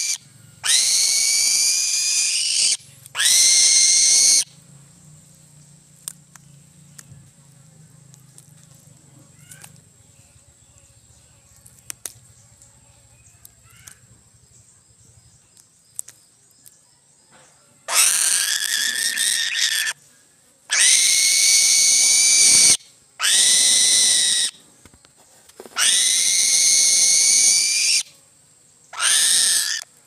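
Eagle giving loud, drawn-out screaming calls while feeding on fish. Each call lasts one to two seconds and rises in pitch at the start. Two come early, then there is a long pause with only faint clicks, then five more in quick succession.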